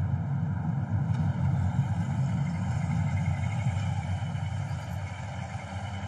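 A car driving, heard from inside the cabin: a steady low rumble of engine and road noise that slowly fades near the end.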